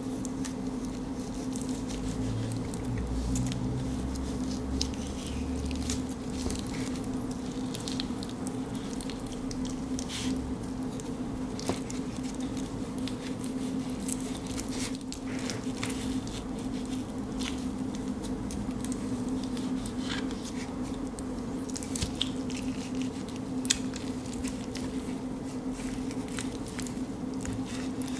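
A Swiss Army knife blade cutting and peeling the skin of a prickly pear cactus fruit: scattered small wet cuts, scrapes and clicks over a steady low hum.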